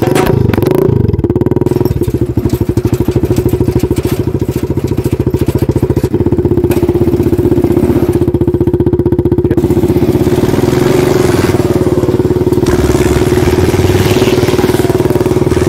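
Small engine of a homemade miniature Ford 3600 replica tractor running under load as it pulls a trailer, with a fast, even firing beat.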